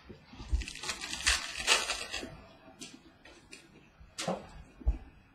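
Football trading cards and packs being handled on a table: a quick run of rustles and clicks for about two seconds, then a few scattered ticks, the last two sharp, with a light thump near the end as a card or pack is set down.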